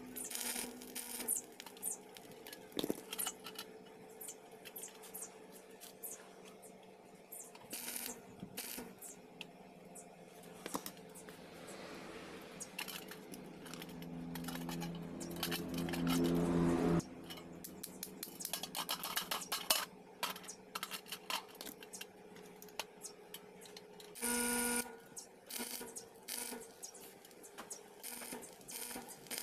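Stick welding a motorcycle chain to a steel plate: the welding arc crackles in short tack welds over a steady electrical hum. One longer weld builds for a few seconds and cuts off abruptly about halfway through.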